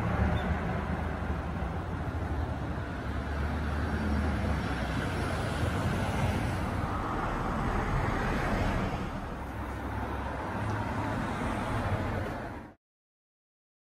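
Outdoor street ambience with road traffic: a steady low rumble and noise of passing vehicles that swells and eases, then cuts off suddenly near the end.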